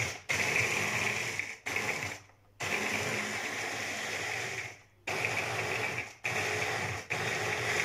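Electric mini food chopper grinding dry biscuits into crumbs, run in pulses: the motor cuts out and restarts about five times, with short stops.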